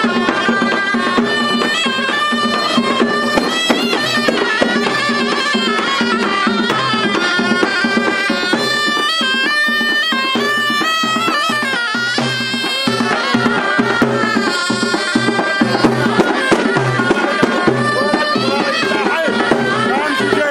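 Traditional folk music: a reed wind instrument plays an ornamented melody over a held lower note, with a steady drum beat underneath.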